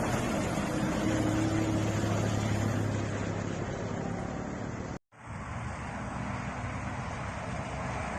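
Road noise of a bus engine running, with a steady low hum and wind on the microphone. The sound drops out completely for a moment about five seconds in, then resumes.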